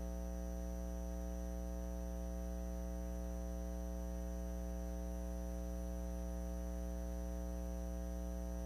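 Steady electrical mains hum with a stack of evenly spaced overtones on the sound system's audio line, unchanging throughout.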